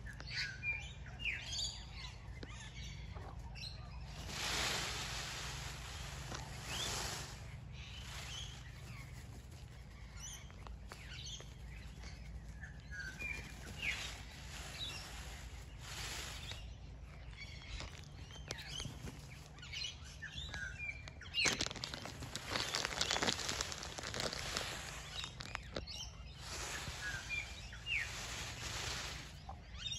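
A displaying peacock shivering his fanned train, a rustling, rattling shimmer of the quills in several bursts, the longest about three-quarters of the way through. Short high chirps of small birds come throughout.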